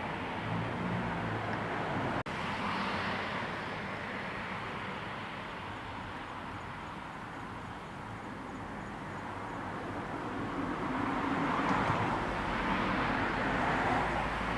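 Outdoor vehicle noise: a steady rush with a low engine hum, swelling as a vehicle passes from about ten seconds in. The sound cuts out for an instant about two seconds in.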